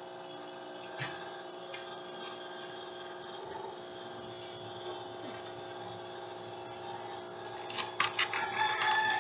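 Plastic Lego pieces clicking and clattering as they are handled: single clicks about one and two seconds in, then a rapid flurry of clicks and rattling near the end. A steady background hum runs underneath.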